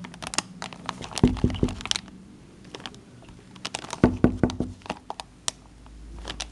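Handling noise close to the microphone: sharp clicks, ticks and a few dull knocks as the camera and the hard cracker are jostled while a baby grabs at it. The sounds come in two clusters, about one second in and again about four seconds in, with scattered light ticks between.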